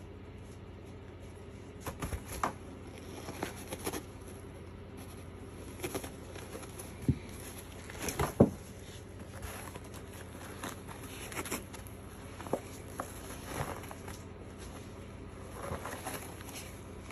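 A cat batting at and wrestling with a roll of paper towels on a tabletop: scattered knocks, thumps and paper rustles, the loudest about eight seconds in as the roll tips over.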